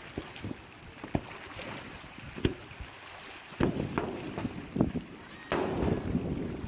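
Fireworks going off over the lake: a string of separate sharp bangs. Louder, denser stretches of booming and crackle begin about halfway through and again near the end.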